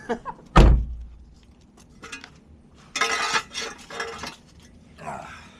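A single heavy thud, then light metallic clinks and a short scraping rush, as of metal parts or tools being handled.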